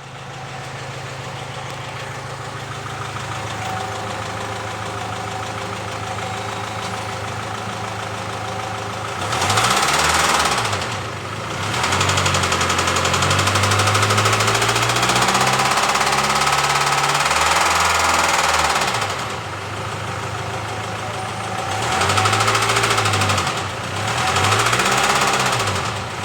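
Car engine running steadily, then revved up and let back down several times from about nine seconds in, with a knocking noise that comes in under acceleration.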